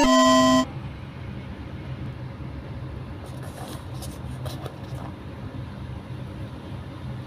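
A bright electronic music jingle cuts off under a second in. It leaves a steady low hum, with faint light clicks and rustles from a handful of rubber bands being picked up, strongest a few seconds in.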